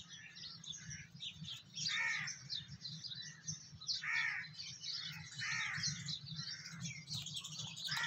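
Birds calling: a harsh, cawing call repeats every one to two seconds over a constant chatter of many small birds chirping.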